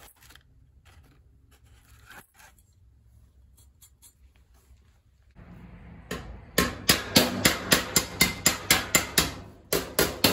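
Quick, even hammer blows on the steel cowl panel against a body spoon, hammer-and-dolly work, about four or five blows a second starting some six seconds in, with a short break near the end before they resume. Before that, only faint handling rustles.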